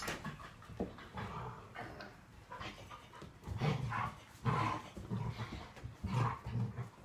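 A large dog panting in uneven bursts during rough hands-on play on a rug, with scuffling of paws and hands.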